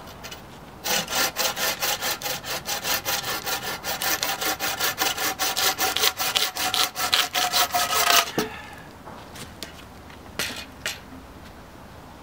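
Hand saw cutting through a wooden pole in quick back-and-forth strokes for about seven seconds, then stopping. A couple of light knocks follow near the end.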